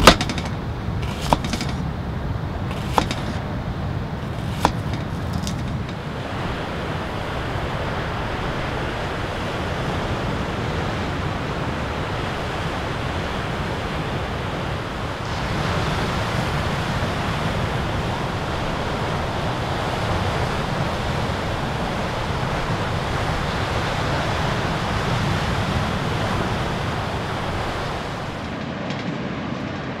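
A knife slicing through an onion onto a plastic cutting board, four sharp cuts in the first five seconds. Then a steady rush of surf and wind, with heavy waves breaking on a rocky shore, louder from about halfway until shortly before the end.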